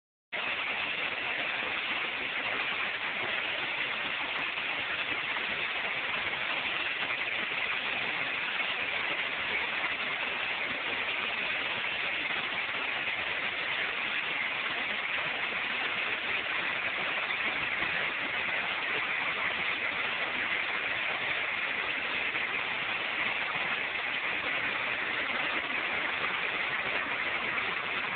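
Hailstorm: hail and heavy rain pelting down in a dense, steady hiss.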